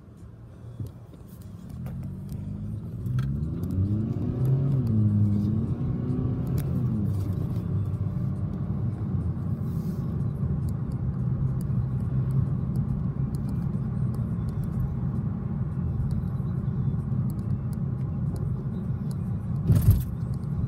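Car engine and road rumble heard from inside the cabin while driving, the engine pitch rising and falling as the car accelerates in the first few seconds, then settling into a steady low rumble. A short knock near the end.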